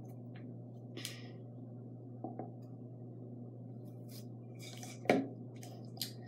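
A plastic toothpaste tube being squeezed and handled over a toothbrush, with small crinkles and clicks over a steady low hum. About five seconds in there is a single sharp knock as the tube is set down on the counter.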